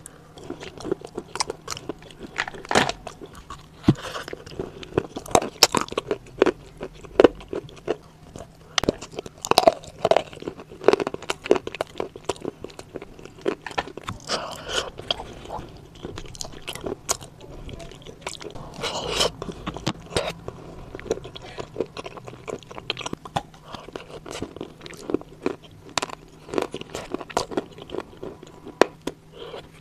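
Biting and chewing of dry edible clay chunks coated in wet clay paste: a run of sharp, irregular crunches with chewing between them.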